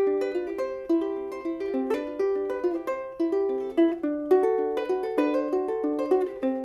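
Soprano ukulele fingerpicked, playing a melody of quick plucked single notes that ring briefly and decay.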